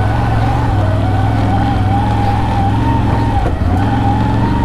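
CFMoto CFORCE 1000 ATV running at low trail speed, with a steady high whine over the engine note. The engine and whine dip briefly about three and a half seconds in, as if off the throttle, then come back with the whine slightly higher.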